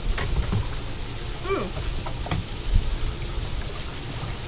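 Steady low rumble of wind buffeting the microphone on an open boat deck, with a short falling vocal sound, like a murmured "mm", about a second and a half in.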